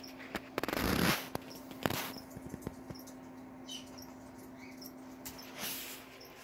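Newborn corgi puppies making tiny, faint, high squeaks while nursing. A louder burst of rustling and clicking comes about a second in.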